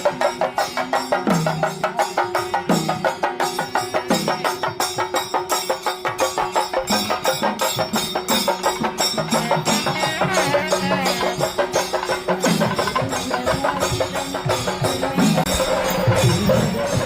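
Music with fast, even drum strokes and a melody moving over a held tone.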